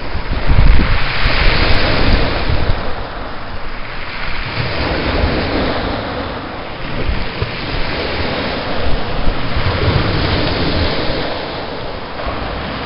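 Surf washing on a beach, rising and falling in surges every few seconds, with wind rumbling on the microphone.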